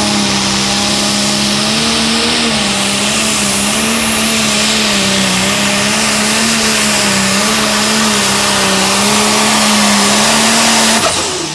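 International Harvester Pro Stock pulling tractor's turbocharged diesel engine running flat out under load as it pulls the sled. It is a steady drone that wavers a little in pitch, with a loud rushing hiss over it, and it drops off suddenly near the end.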